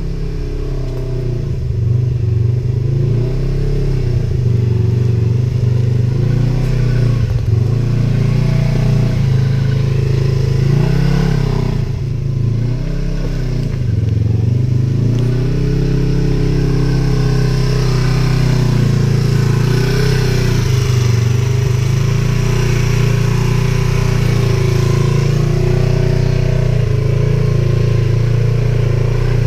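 Polaris RZR side-by-side's engine running under load while crawling over rocks, its pitch rising and falling with the throttle every few seconds. The level dips briefly about twelve seconds in.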